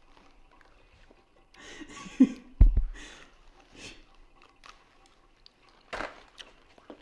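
A person biting into and chewing a whole fried, coated squirrel, in a few short noisy bursts. A single heavy low thump about two and a half seconds in is the loudest sound.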